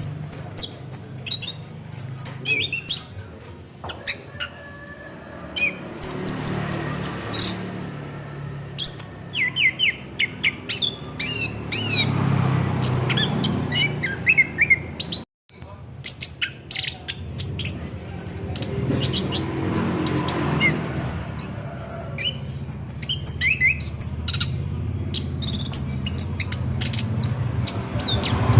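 Orange-headed thrush (anis kembang) singing a fast, continuous rolling song of rapid high chirps and whistles over a low steady hum. The sound cuts out for a moment about halfway through.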